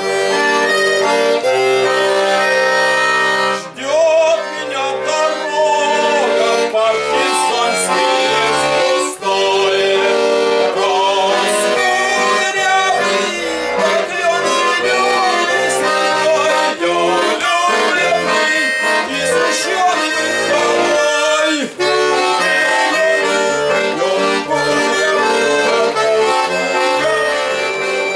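Bayan (Russian button accordion) playing a folk tune, a sustained melody over regular bass-button chords, with short pauses about 4 and 9 seconds in. The player asks right afterwards whether the bayan is out of tune.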